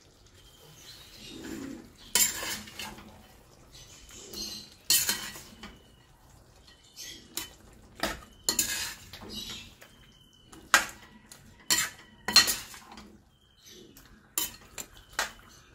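Metal ladle scraping and knocking against a stainless steel kadai as chicken in thick gravy is stirred, mixing in ground black pepper. Irregular clinks and scrapes every second or so, coming closer together near the end.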